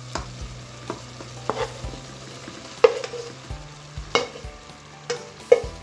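Onions and bell pepper strips sizzling in a hot metal pot as cubes of browned beef tenderloin are tipped in and stirred, with a string of sharp knocks against the pot, each ringing briefly. The loudest knocks come about three, four and five and a half seconds in.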